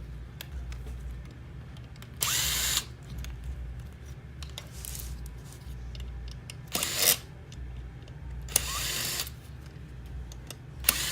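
Power screwdriver spinning out small screws from an electronics housing: several short bursts of the motor, each about half a second, a few seconds apart.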